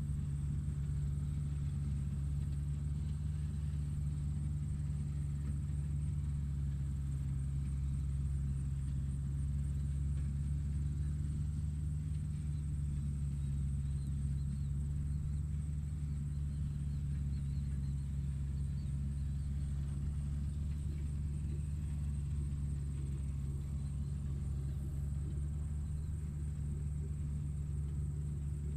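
Electric motors of radio-controlled construction models running with a steady low hum and a faint high whine.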